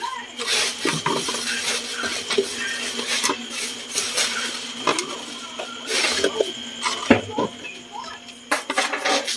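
Onion wedges being dropped and pushed by hand into an aluminium cooking pot of salted beef shanks, giving scattered irregular knocks and clinks against the pot. A steady low hum runs underneath.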